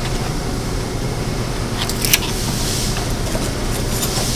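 Steady low mechanical hum of room background noise, with a couple of light clicks about two seconds in.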